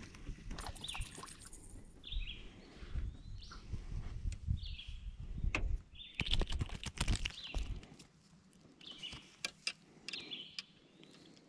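A bird repeating a short, high call every second or two. A low rumble stops about eight seconds in, and scattered sharp clicks and knocks are heard.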